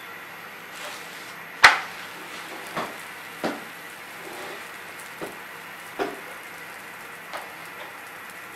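Kitchen clatter: a handful of sharp, irregular knocks and clicks, the loudest about a second and a half in, over a steady faint hiss.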